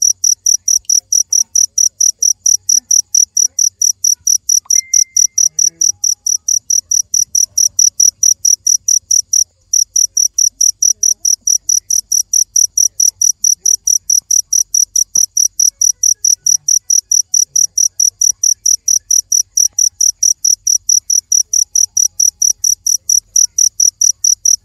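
Cricket chirping in a steady, even rhythm of about four to five high-pitched chirps a second, with a brief break about nine and a half seconds in.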